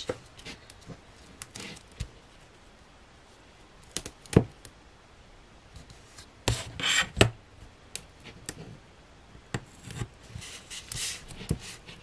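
Hands laying half-inch double-sided score tape on cardstock with a ruler: light scattered taps and clicks, short rustling rubs as the tape is pressed down, and one sharp tap a little over four seconds in.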